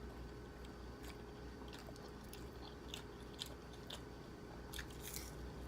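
A person chewing food close to the microphone, with scattered small wet clicks and crunches from the mouth, most of them in the second half.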